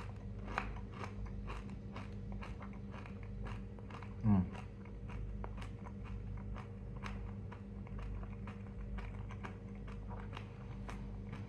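A person chewing a dried Striped Sugar Rush chilli pepper, softened with a dip in water, with many irregular crunches. There is a brief "mm" about four seconds in.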